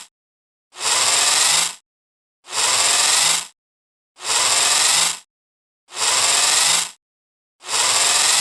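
Robot arm servo motor whirring in short bursts about a second long, each with a faint rising whine. The bursts repeat about every 1.7 seconds with dead silence between them, five in all.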